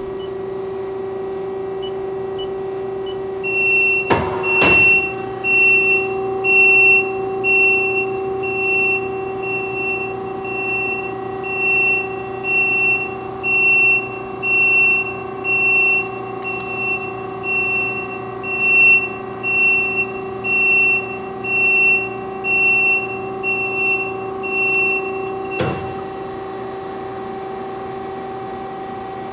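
Steady hum of the JMT WL-460DSAR double miter band saw's running machinery, with a high warning beeper sounding about once a second for some twenty seconds while the powered miter swings the saw head back to 90 degrees. A knock shortly after the beeping starts and another as it stops.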